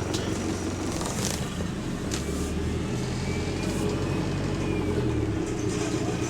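Single-decker bus engine running, heard from inside the saloon, with a steady low hum and a few sharp rattles or clicks from the bodywork.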